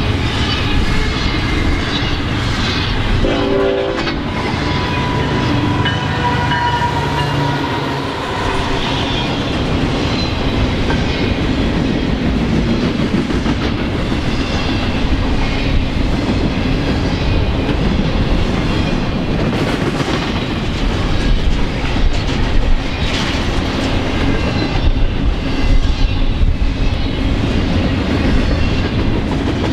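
Double-stack intermodal container train rolling past at about 70 mph: steady rumble and rhythmic wheel clatter of the well cars, with sharper clacking peaks in the last third. A locomotive horn sounds briefly a few seconds in.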